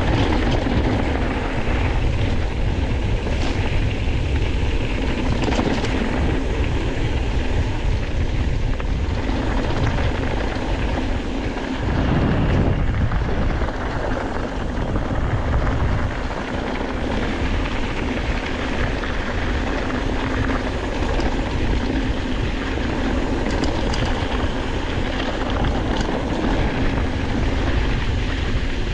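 Steady rush of wind on the microphone with a deep low rumble, as from a mountain bike moving fast along a trail, briefly louder about twelve seconds in.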